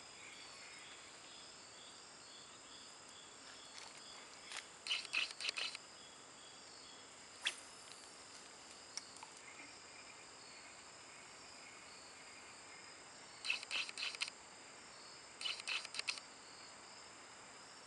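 A steady, high chorus of crickets and other insects. Over it come short bursts of rapid clicking from a spinning reel being cranked, four times, with a single sharp click about halfway through.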